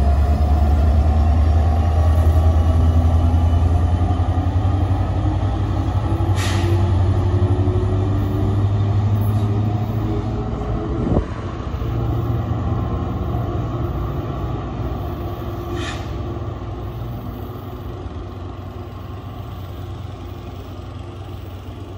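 Alstom PL42AC diesel-electric locomotive's EMD 16-cylinder two-stroke prime mover working hard as the train pulls away, a deep drone with a rising whine in the first few seconds, fading steadily as the train recedes. Two short hisses about six and sixteen seconds in.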